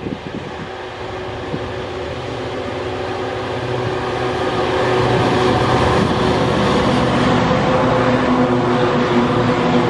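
A lash-up of three Qube diesel-electric locomotives hauling a loaded ore train approaches and passes close by, the engines' steady drone growing louder over the first half and then staying loud as the locomotives go by.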